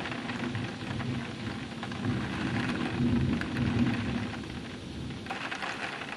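Rain falling with a long, low rumble of thunder that eases off about four and a half seconds in.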